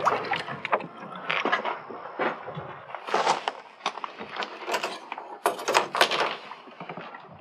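Field gear being handled: irregular clicks, knocks and rustles, busiest about three seconds in and again about six seconds in.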